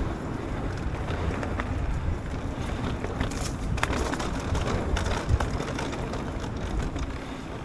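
Propain Ekano 2 AL electric mountain bike ridden along a trail: wind rushing over the microphone and the tyres on the dirt, with many scattered small clicks and knocks of a rattle, which the rider places somewhere in the front end.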